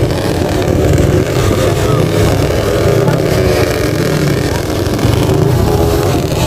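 Dirt bike engines running steadily, their pitch wavering slightly up and down with the throttle.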